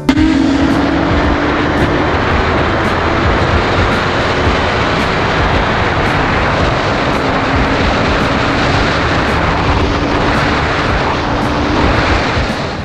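Wind rushing over the microphone on a moving sport motorcycle, with the bike's engine running steadily underneath at road speed.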